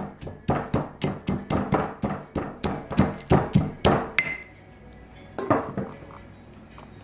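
Stone pestle pounding almonds and walnuts in a stone mortar, quick sharp strikes about three or four a second that stop about four seconds in, with one more strike a little later.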